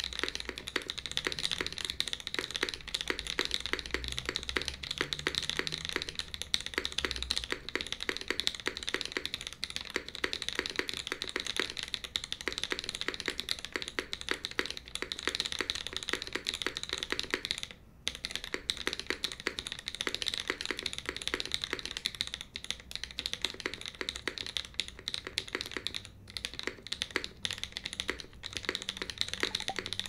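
Fast, continuous typing on a Bulwark custom mechanical keyboard with Mode Obscura switches in an aluminium plate, SkiiData keycaps and bottom silicone dampening fitted: a dense stream of keystroke clacks. There is a brief break a little past the middle.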